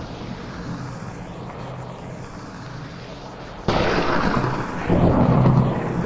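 Steady heavy rain hiss, then a sudden sharp thunderclap about two-thirds of the way in that rolls into a louder low rumble a second later. The recording is processed as '8D' audio, panned around the listener.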